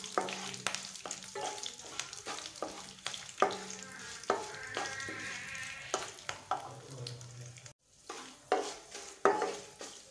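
Spatula stirring dals, dried red chillies and garlic frying in oil in a nonstick kadai: a light sizzle under repeated scrapes and taps of the spatula against the pan. The sound cuts out for a moment about three-quarters of the way through.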